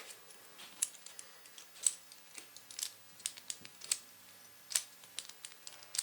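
Irregular sharp clicks and light taps, about a dozen, from a small pin cam lock and its small metal parts being handled and worked.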